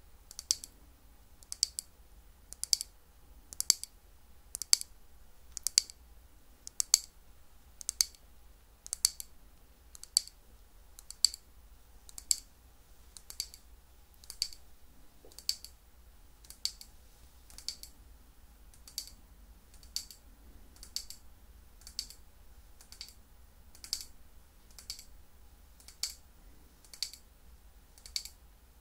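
Close-miked chewing of crisp, crunchy sweets: a sharp crunch about once a second at an even pace, growing softer in the second half.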